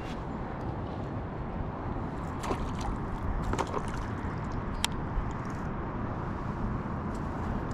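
Wind rumbling on the microphone over water lapping close by, with a few light, sharp clicks during the lure retrieve.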